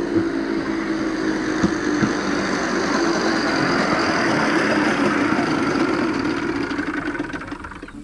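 A motorcycle-driven rail cart passing close by: its motorcycle engine running steadily under the rushing, rattling noise of the cart rolling on the rails. It starts suddenly, is loudest in the middle and fades near the end.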